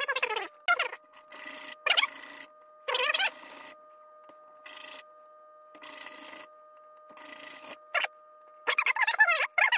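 Short rasping strokes, about one a second, of the cut end of a lighter being sanded down to shape a scale exhaust muffler. Louder warbling, voice-like sounds come at the start, a few seconds in, and near the end.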